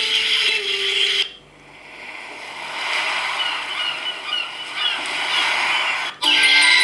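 Samsung Galaxy tablet stock ringtones playing one after another. A melodic ringtone ends about a second in, then a nature-sound ringtone swells in: a rushing, surf-like hiss with short high chirps. It cuts off near the end as another melodic ringtone begins.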